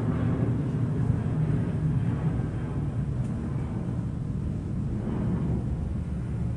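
A 42-inch Craftmade Decorative ceiling fan running steadily: a low, even whoosh of the blades moving air, with the spinner motor's hum.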